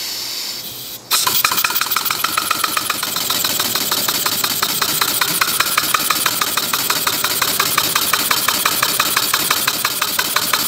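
Compressed air hissing into a small three-cylinder radial model engine, which about a second in starts and settles into a slow idle: a fast, even string of sharp exhaust puffs. The engine runs on compressed air and has overhead valves worked by pushrods.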